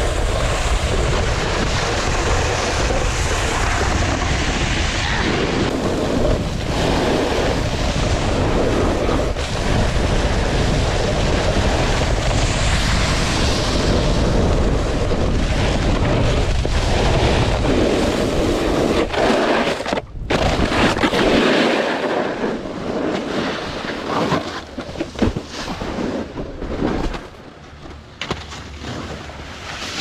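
Wind rushing and buffeting on the microphone of a snowboarder's camera, mixed with the hiss and scrape of the board sliding over hard, icy snow. About twenty seconds in, the deep rumble drops away and the noise comes in uneven surges.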